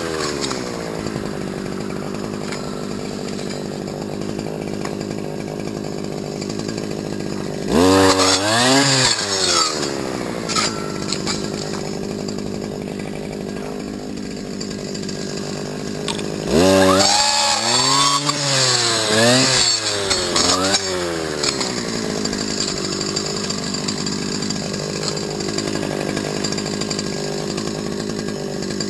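Stihl FS250 brush cutter's small two-stroke engine running at idle, revved up twice: once about eight seconds in, held briefly and let fall, and again near the middle in several quick blips of the throttle before dropping back to idle.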